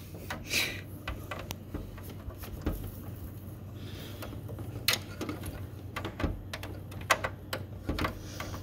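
Small irregular plastic clicks and handling rustle as a phone-line cable is worked into its jack, over a low steady hum.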